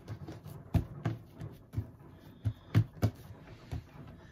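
Hands rolling and handling a long loaf of French bread dough on a kitchen countertop: an irregular scatter of soft knocks and thumps.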